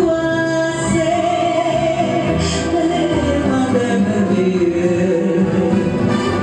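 A woman singing into a microphone, holding long notes.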